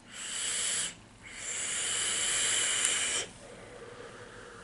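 A person vaping: a short breathy hiss as she draws on the e-cigarette, a brief pause, then a longer, steady hiss of about two seconds as she exhales a large cloud of vapour.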